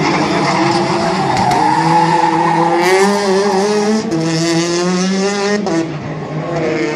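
Peugeot 208 rally car engine revving hard and rising and falling in pitch as the car slides sideways through a tight tarmac course, with tyres squealing. The engine note drops sharply near the end, then climbs again.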